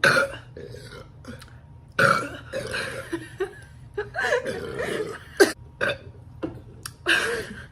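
Girls burping, several separate burps, with a longer drawn-out one about two seconds in.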